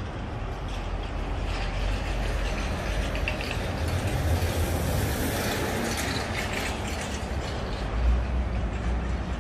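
A heavy vehicle passing on a city street: a low rumble with rattling and clattering that builds, is loudest midway, then eases, with a low thump near the end.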